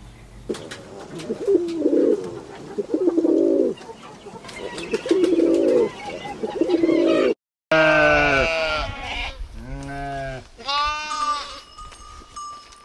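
Animal calls: four low calls about a second apart, then after a brief break a series of higher, pitch-bending calls with a rich, buzzy tone.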